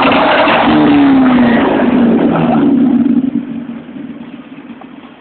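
1979 Chevrolet Opala's naturally aspirated engine revved hard, its note rising and falling. About three seconds in, the revs drop away and it settles to a much quieter idle.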